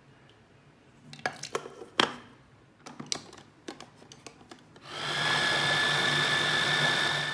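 Plastic clicks and knocks as a Kenwood Quad-Blade chopper's jar, blade and motor unit are fitted together. Then its 500 W motor runs with a steady whine for about two and a half seconds, pureeing cooked tomatoes, and stops at the end.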